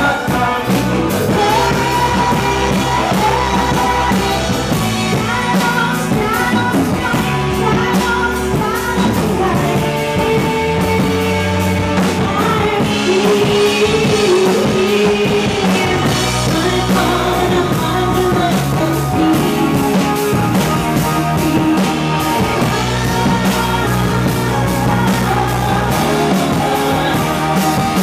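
Live rock band playing a song with a woman singing over keyboards and guitar, with a steady beat.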